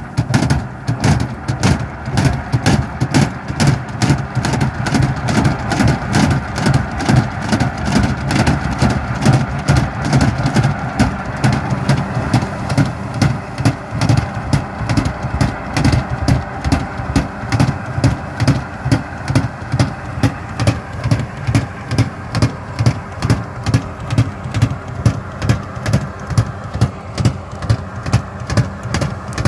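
Diesel engine of a John Deere tractor running steadily under load while it drives and pulls a tractor-mounted rotary mulcher through loose soil, with an even, rapid pulsing beat.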